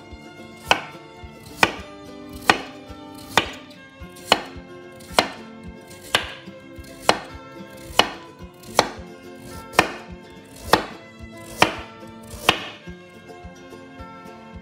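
Knife chopping food on a cutting board in slow, even strokes, about one a second, fourteen in all, stopping shortly before the end.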